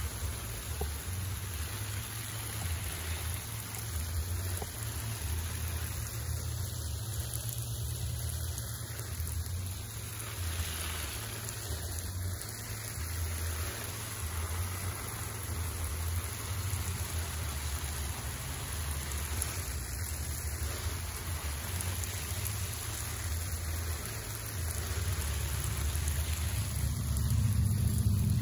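Wind buffeting the microphone as a fluttering low rumble, under a steady hiss like rain or spraying water; it grows louder near the end.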